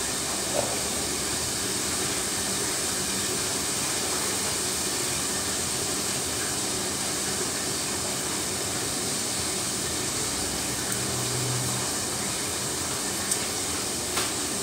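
Steady background hiss, with a few faint clicks near the end.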